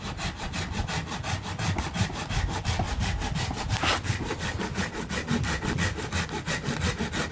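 Hand pruning saw cutting through a live stem of a Wrightia (mok) bonsai stock, in fast, even back-and-forth strokes that keep a steady rhythm.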